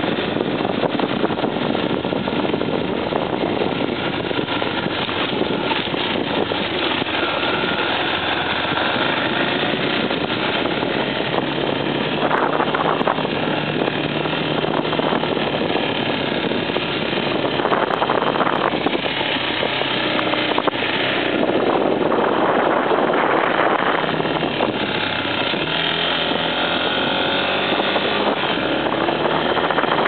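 Off-road motorcycle engine running as it climbs a gravel forest road, its pitch rising and falling with the throttle, mixed with wind and road noise, with a few louder surges.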